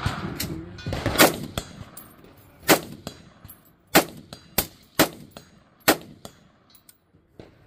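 Anderson Utility Pro 5.56 AR-15 semi-automatic rifle firing about five shots, one every second or so, each followed a fraction of a second later by the fainter ring of the bullet hitting a steel target.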